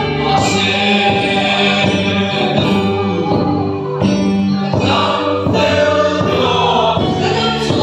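A congregation singing a worship song together, with a regular beat behind the voices.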